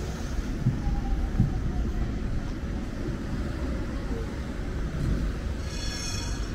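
City street background: a steady low traffic rumble, with a brief shrill tone near the end.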